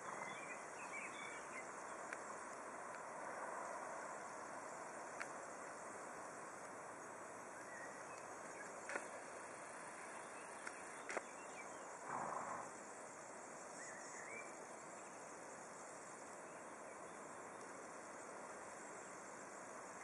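Faint rural meadow ambience: a steady hiss with insects, a few short bird chirps and scattered faint ticks, and a brief louder rustle about twelve seconds in.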